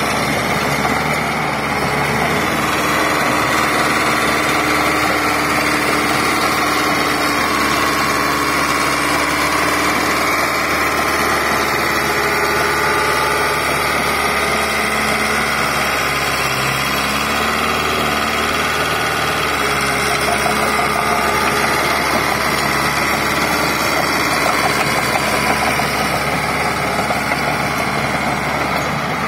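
Caterpillar D3 crawler dozer's diesel engine running steadily.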